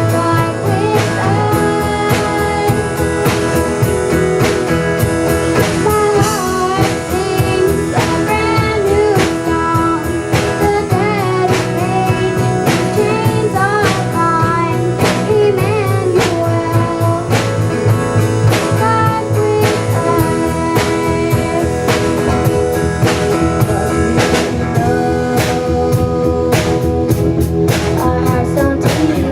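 Band music with guitar and drum kit and a sung melody, playing steadily without a break.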